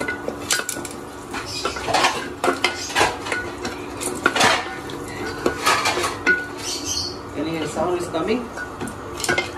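Wooden spatula stirring popcorn kernels in a metal pot: irregular scraping and clattering of the spatula and kernels against the pot.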